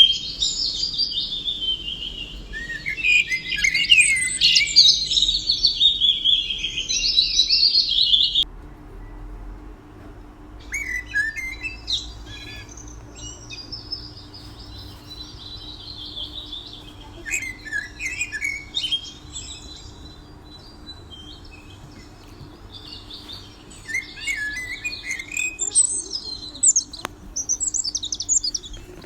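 Small songbirds chirping and warbling in quick, high trills. The song is loud for about the first eight seconds, breaks off abruptly, then goes on more faintly in scattered bursts and grows busier again near the end.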